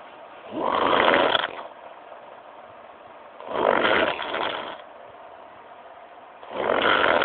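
A sleeping person snoring: three loud snores about three seconds apart, each lasting about a second.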